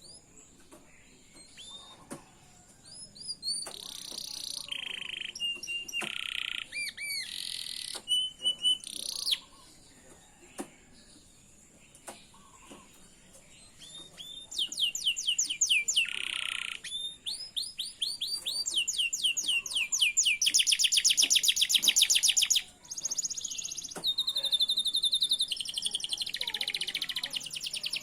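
Domestic canary singing: varied whistled and buzzy phrases, a short pause, then long rapid rolling trills that are loudest near the end.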